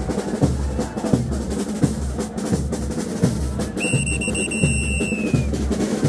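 Frevo orchestra playing brass over a steady bass drum and snare beat. A high whistle is blown for about a second and a half just past the middle, dipping slightly in pitch as it stops.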